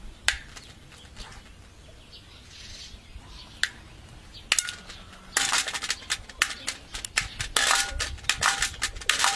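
Male common pheasant's beak pecking at a metal food bowl: sharp clicks, a few spaced out at first, then a quick run of them from about halfway through, some with a short metallic ring.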